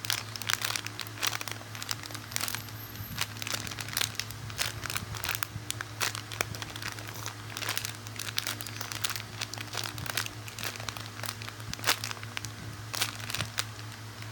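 Crinkling and rustling from an ice-cream squishy toy being handled close to the microphone: many small irregular crackles throughout, over a steady low electrical hum.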